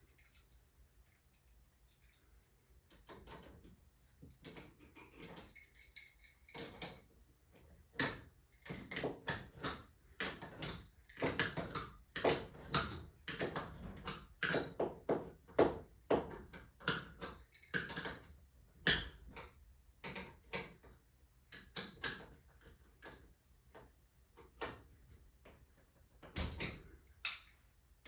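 Metal hardware and hand tools clinking and knocking against each other in irregular clusters, some strikes ringing briefly, while garage door torsion spring parts are handled.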